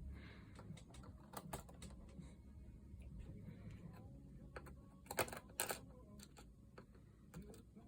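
Faint, irregular clicks and taps of a small screwdriver and tiny screws being handled against a Chromebook's plastic case while the bottom screws are taken out, with two louder clicks a little past the middle.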